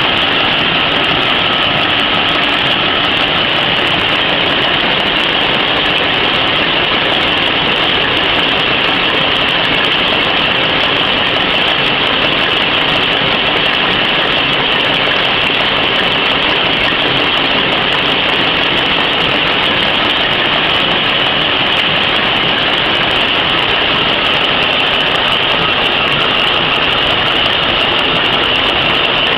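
PCMC napkin machine running at steady speed, a constant loud mechanical din with a bright high hiss, as the paper web feeds through its rollers.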